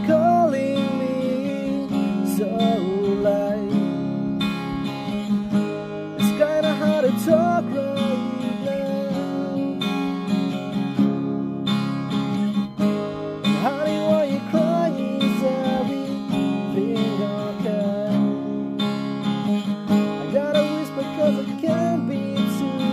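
Acoustic guitar strummed in steady chords, with a man's voice singing along in short phrases.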